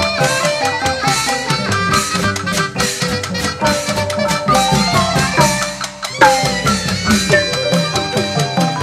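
Burmese hsaing waing ensemble playing: drums and gongs under a gliding, ornamented melody. The music dips briefly about six seconds in, then comes back with a strong struck accent.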